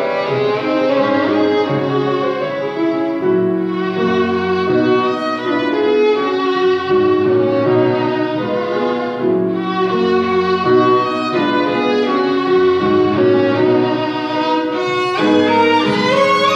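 A violin and a grand piano playing together: a bowed violin melody of sustained notes over a piano accompaniment.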